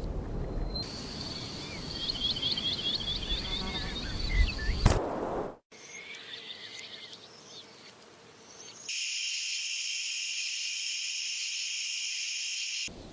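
Songbirds chirping, with a quick run of about ten falling notes. After a sharp click and an abrupt cut come fainter chirps, then a steady high-pitched insect drone, like crickets, that starts suddenly and stops suddenly near the end.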